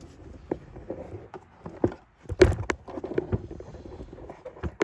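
Irregular light clicks and taps of a small plastic electrical connector being handled, with one sharper knock about halfway through.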